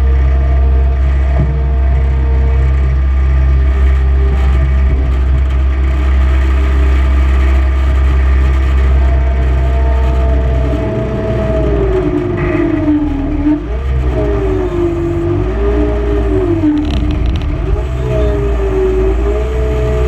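Skid steer loader engine running, heard from inside the open operator's cage. For the first half its pitch holds steady; from about halfway on the pitch rises and falls again and again as the machine is worked.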